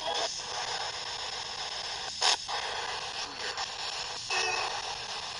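Spirit box sweeping through FM radio stations: steady radio static broken by short snatches of broadcast sound, with a brief sharp burst a little over two seconds in.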